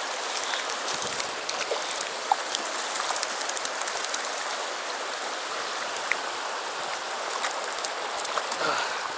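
Shallow, rocky river running with a steady rush of water, with scattered light clicks over it.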